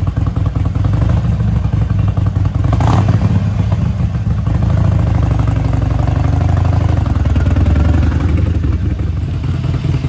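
Harley-Davidson Iron 883's air-cooled V-twin idling steadily, just started and left running to warm up after months unused.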